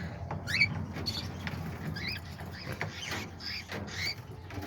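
Small pet parrots in an aviary chirping: short, squeaky high chirps that sweep quickly in pitch, several a second, with a few sharp clicks.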